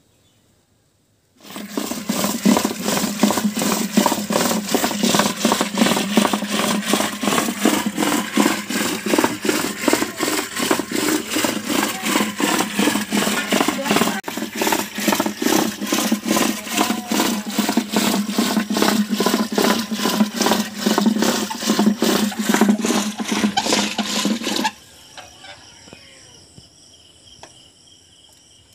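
Traditional rope-pulled wooden churning stick twisting back and forth in an aluminium pot of cream and curd. The churned liquid sloshes and swishes in a rapid, even rhythm of several strokes a second as buttermilk is churned to separate butter. The churning stops abruptly about 25 seconds in, leaving crickets chirping steadily.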